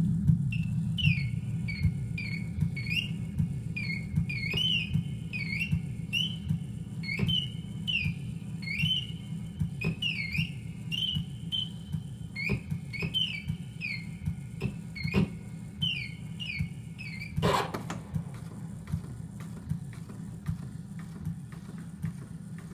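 Experimental turntable noise. A low rumbling pulse with even clicks comes from a stylus running over a scratched record label. Over it, an off-center Morse code record plays a broken high beeping tone that swoops down and back up over and over, until a sharp crack about 17 seconds in. After that only the low pulsing remains, slowly fading.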